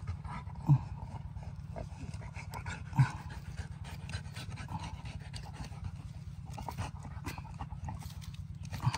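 A dog panting rapidly and steadily, with three short low thumps and scattered light clicks.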